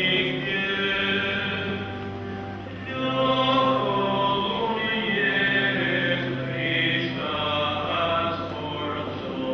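A church hymn sung by a choir in a chant-like style, over long held low chords that change every few seconds.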